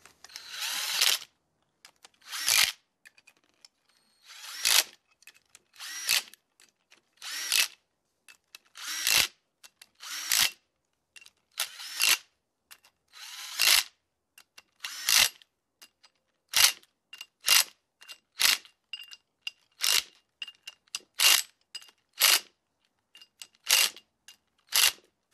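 Cordless impact wrench hammering the ring-gear bolts onto a limited-slip differential carrier in about twenty short bursts, with silent pauses between, the bursts coming faster in the second half.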